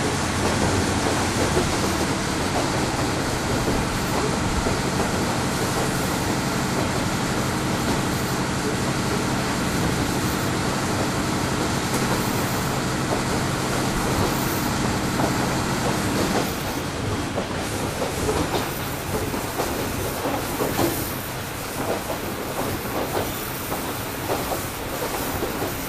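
Running sound inside a KiHa 38 diesel railcar, heard from above its DMF13HS diesel engine. The engine runs under power with a steady note, then drops away about two-thirds of the way through, leaving wheel and rail rolling noise with clicks from the rail joints.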